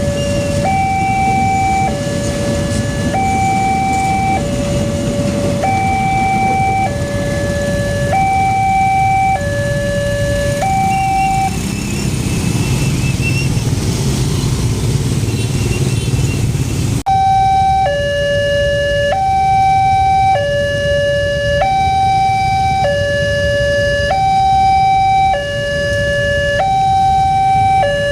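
Alkmaar-model railway level-crossing warning siren sounding a two-tone hi-lo alarm, switching between a higher and a lower tone about every second. The tones drop out for about five seconds in the middle under a heavy low rumble, then the hi-lo alarm resumes.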